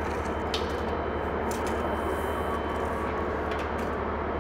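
Steady low hum and even hiss of background room noise, with a few faint light clicks.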